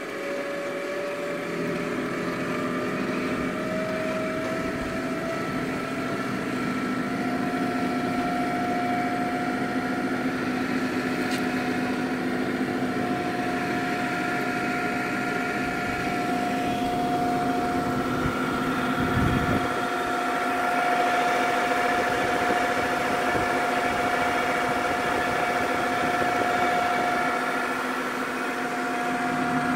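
OMG MB225 twin-shaft paddle mixer running empty: the drive motor and gearbox hum and whine steadily. The whine rises slightly in pitch over the first several seconds and then holds.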